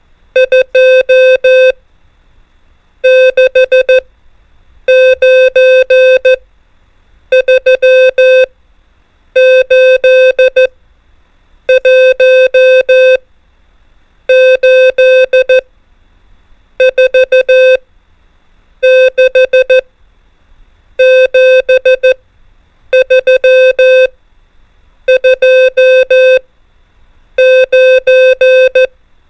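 Morse code (CW) practice tone sending numbers: clusters of short and long beeps (dits and dahs) at one steady pitch, about a dozen characters with a short pause after each, roughly one every two seconds.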